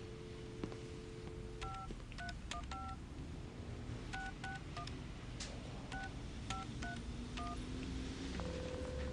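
Push-button desk telephone: a dial tone in the handset, then about eleven touch-tone key beeps in three quick groups as a long number is dialled. Near the end the line starts ringing.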